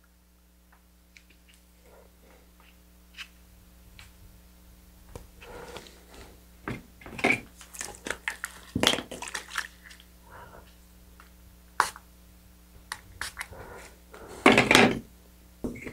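Handling noise from gloved hands working model rocket parts: scattered rustles, taps and light knocks. Sparse for the first few seconds, then busier, with the loudest rustle about a second before the end.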